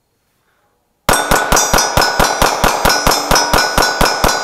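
Rapid fire from a 9mm pistol at steel plate targets, starting about a second in: about five sharp shots a second, each with a clanging ring from the struck steel.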